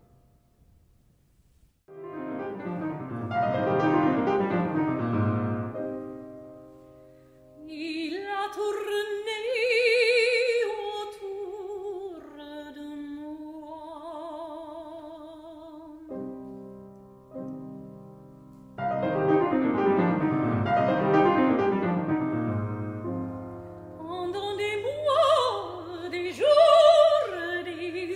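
Operatic singing by a woman with piano accompaniment. After a brief pause the piano plays alone, then the voice enters with long, wide-vibrato notes. The piano carries on alone for a few seconds before the voice returns near the end.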